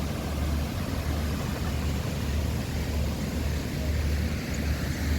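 Wind buffeting the microphone in gusts, a low rumble over a steady rushing noise.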